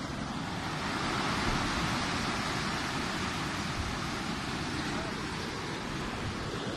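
Ocean surf breaking and washing over the rocks, with wind buffeting the microphone; the rush swells about a second in and then eases.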